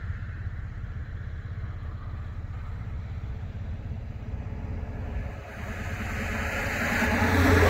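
Road noise heard from inside a moving car: a steady low rumble of tyres and engine. In the last couple of seconds a rising rush builds to its loudest at the very end as another vehicle passes close by.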